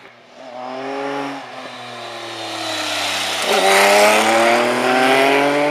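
Sport motorcycle engine under hard acceleration passing close by. The revs climb and drop with each gear change, and it is loudest about four seconds in as it goes past.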